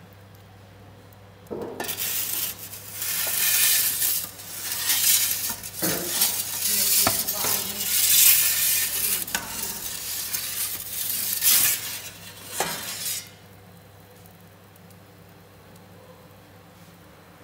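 Metal pizza peel scraping and clattering over the stone deck of an Izzo Scugnizzo Napoletano electric pizza oven as the pizza is slid and turned, with a few sharp clicks. It starts about a second and a half in and stops abruptly after about eleven seconds.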